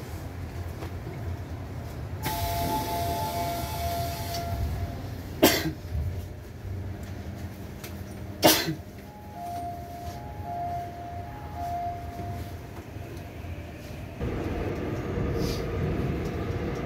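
Steady low rumble of a Seoul subway Line 7 train car under way, heard from inside. A hissing rush comes in about two seconds in and lasts a couple of seconds, and two sharp knocks sound about three seconds apart. A few short high tones follow the second knock, and the running noise grows louder near the end.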